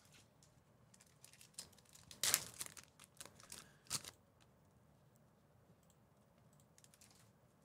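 Trading-card pack wrappers crinkling and tearing, with scattered light clicks as the cards are handled. The loudest crackles come about two and four seconds in, and after that only faint clicks remain.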